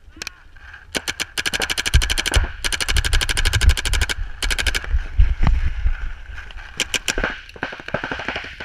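Paintball marker firing close by in rapid strings of shots, about a dozen a second, in two long bursts in the first half, then single shots and short strings.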